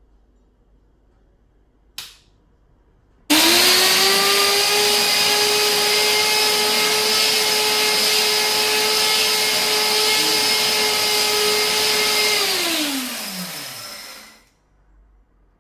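A sharp click, then about a second later an electric dry grinder's motor starts abruptly and runs at a steady high whine for about nine seconds, its blades grinding dried chili peppers. Then the motor winds down, its pitch falling until it stops.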